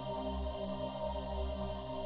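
Ambient background music with steady held chords over a slowly swelling low bass.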